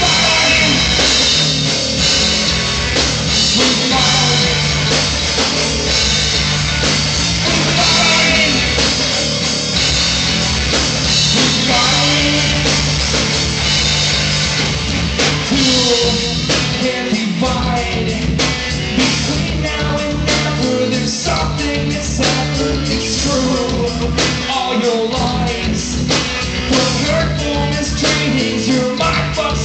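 Live rock band playing loudly: electric guitars over a driving drum kit.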